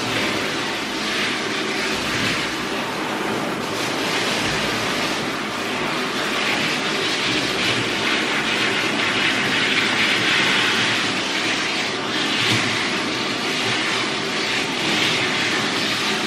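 Water spraying steadily from a handheld hose sprayer into a dog's wet coat and onto a stainless steel tub, a hiss that swells and eases as the spray moves.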